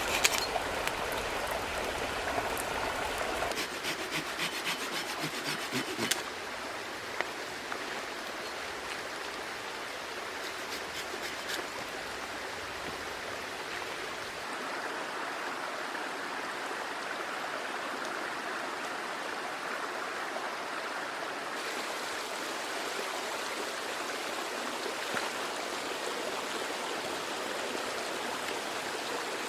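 A small stream running steadily over stones, an even rushing trickle. In the first few seconds a scatter of sharp ticks and clicks sounds over the water, then fades out.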